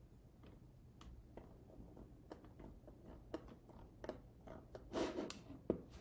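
Faint, irregular clicking of a computer mouse in use, with a short louder rustle about five seconds in.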